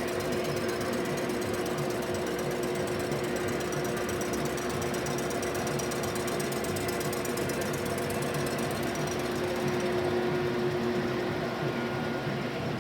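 DeVlieg machine tool running and cutting an exhaust manifold, a steady hum with a fast, even rattle of the cut over it.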